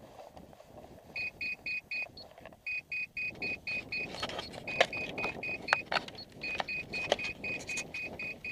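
Electronic beeper sounding runs of short, high, same-pitched beeps, about five a second, with brief gaps between the runs. From about halfway through, a scatter of sharp clicks and knocks joins in.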